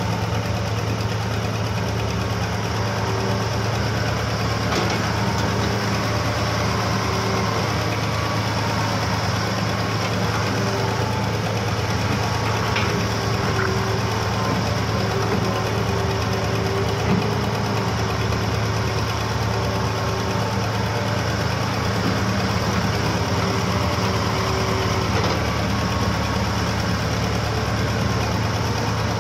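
Diesel engines of Hitachi and Kobelco hydraulic excavators running as they dig soil: a steady low engine drone, with a higher tone that comes and goes and a few faint clanks.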